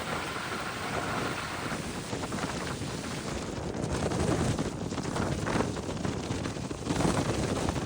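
Strong, gusty wind buffeting the microphone: a loud rushing that swells in surges, strongest about four to five seconds in and again near the end.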